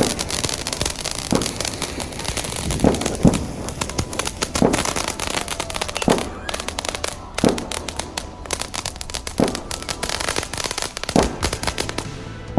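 Fireworks going off: a dense crackle with a string of louder bangs every second or two.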